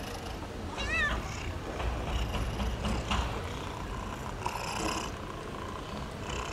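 Cats meowing: a short meow about a second in and a fainter one near five seconds, over a low rumble.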